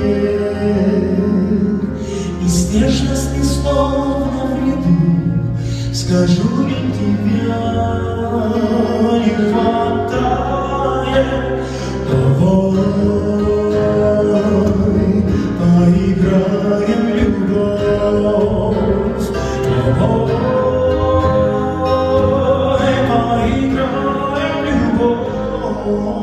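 A slow song played live on electric keyboard and acoustic guitar through the hall's PA, with a voice singing the melody. It grows quieter near the end.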